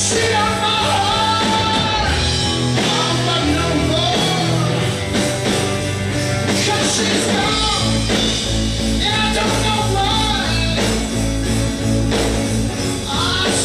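Live rock band playing a song on electric guitars and drum kit, with a melodic line bending in pitch over a steady bass and drum groove.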